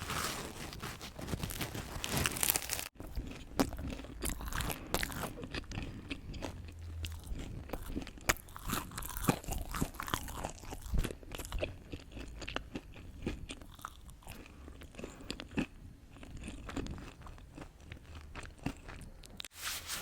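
Close-miked eating: crunchy bites and chewing, with irregular crackling crunches throughout.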